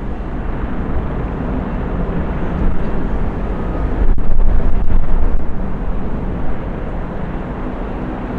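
Jet airliner engines at takeoff power, a steady low rumble that swells briefly about four seconds in.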